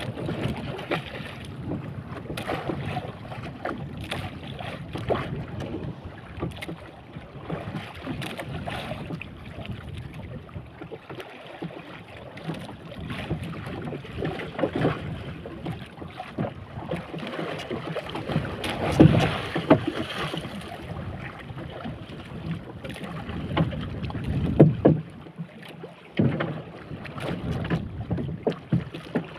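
Water slapping and splashing against a small drifting boat's hull, with wind on the microphone and irregular knocks; the loudest splashes come about two-thirds of the way through and again a few seconds later.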